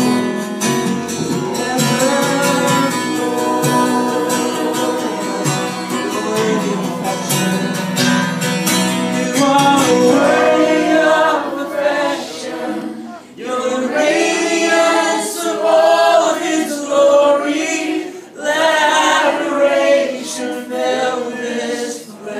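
Live worship song: a man and a woman singing into microphones over a strummed acoustic guitar.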